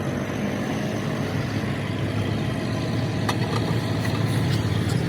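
An engine idling steadily, with a few faint clicks about three seconds in.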